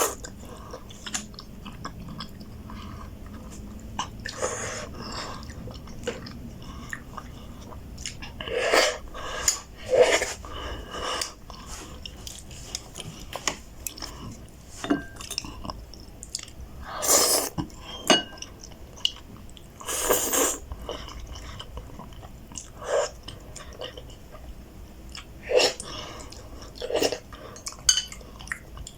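Close-up eating sounds of ramen noodles: irregular chewing, slurping and smacking in short bursts, with an occasional clink of cutlery or bowl.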